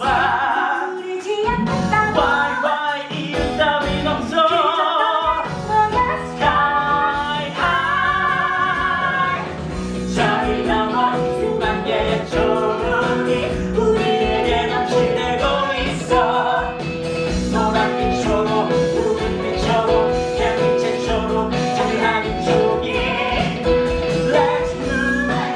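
Live musical-theatre number: singing through stage microphones over a band accompaniment, with sustained, wavering vocal lines over the instruments.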